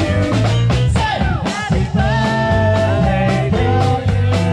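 Blues-rock band music: electric guitar over bass and drums, with notes bending up and down.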